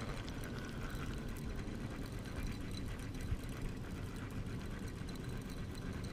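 Spinning fishing reel being cranked to retrieve line: a fast, steady run of fine mechanical clicking, with a sharper knock about three seconds in.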